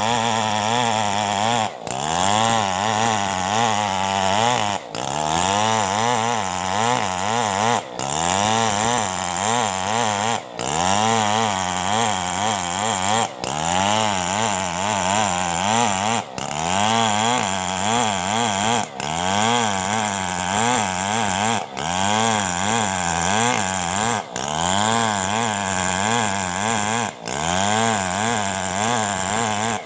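Engine-driven saw running steadily, its pitch sagging and recovering in a regular cycle, with a brief drop in sound about every three seconds.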